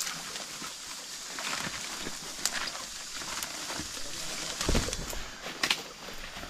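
Footsteps of a person walking outdoors: a few irregular thuds and knocks, the strongest about two thirds of the way through, over a steady high hiss.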